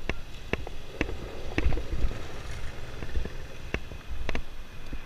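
Bicycle ridden over rough pavement, rattling with irregular sharp clicks and knocks a few times a second over a low rumble.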